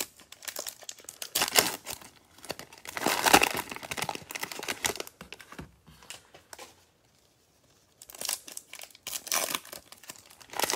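Plastic wrappers of Mosaic football cello card packs crinkling and tearing as packs are unwrapped and ripped open by hand, in crackly bursts with a quiet pause of about a second after the middle.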